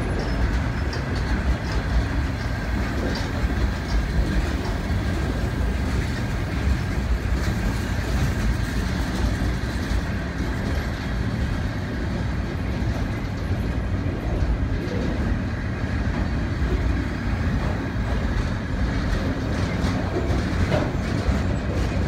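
Loaded freight flatcars rolling past close by: a steady rumble of steel wheels on rail with some clicking over the rail joints and a faint thin steady tone above it.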